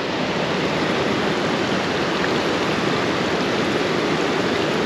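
Steady rushing of fast-flowing river current, an even hiss-like wash of water with no breaks.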